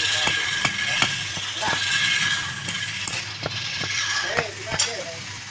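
Woodturning lathe running with a steady motor hum and a thin high whine, under a hiss and irregular sharp ticks from the tool working the spinning piece.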